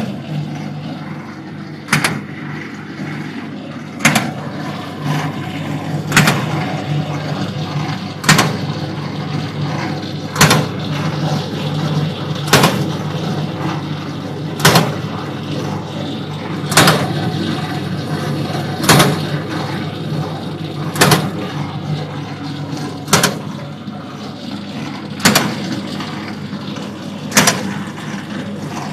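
Automatic dough twist machine running: a steady motor hum with a sharp clack about every two seconds as the automatic cutter chops the twisted dough rope into set lengths.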